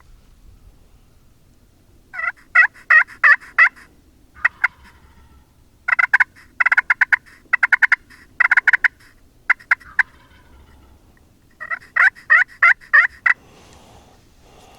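Turkey yelping and cutting: loud runs of short, sharp notes, each breaking from high to low. The notes come in four bursts, the middle one fast and choppy.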